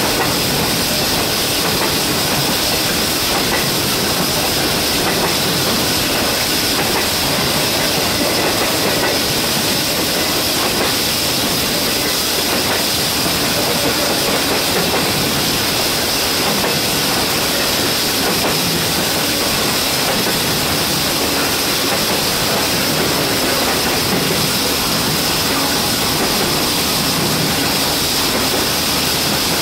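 CSX intermodal freight train's container and double-stack cars rolling steadily past, wheels running on the rails. Over it sits a steady loud hiss from an air leak on a stationary New England Central locomotive.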